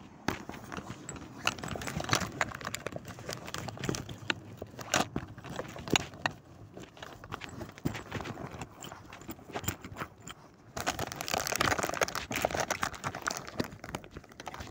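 High-heeled shoes clicking on hard pavement in slow, irregular steps. A stretch of rustling noise comes in about two-thirds of the way through.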